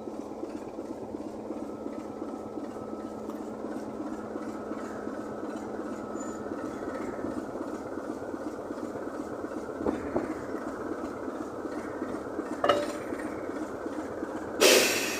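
Class 27 diesel locomotive D5394's Sulzer six-cylinder engine running steadily as the locomotive rolls slowly past close by, with wheels on the rails. A few knocks come in the last third, the loudest a sharp metallic burst just before the end.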